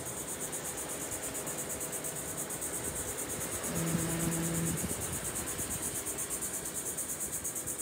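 A steady, high-pitched insect chorus, a fast pulsing trill. A low steady hum sounds for about a second a little before halfway through.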